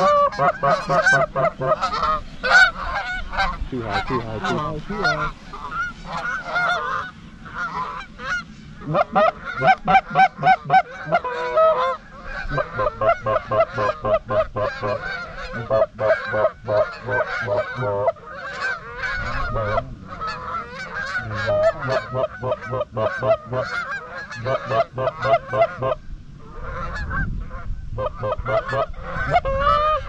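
Canada goose honking and clucking, rapid and continuous, with several calls overlapping and a brief lull near the end.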